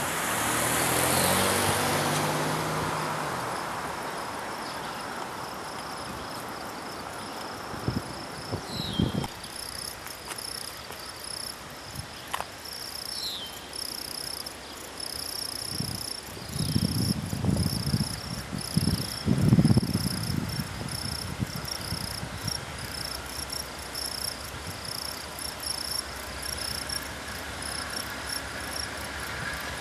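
A car drives over the railroad crossing in the first few seconds, then insects chirp in a steady pulsing rhythm, with a few short bird chirps and some low rumbling gusts in the middle.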